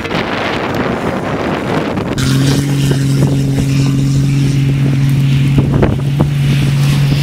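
Heavy wind buffeting the microphone, then from about two seconds in a 4x4's engine joins it with a steady low drone at constant revs.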